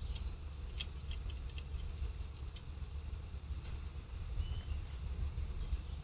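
Outdoor ambience: a steady low rumble with scattered faint clicks and two short high chirps about midway.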